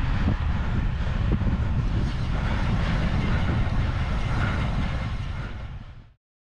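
Wind rush and road noise on a cycling camera's microphone while riding, a steady low rumble that fades out to silence near the end.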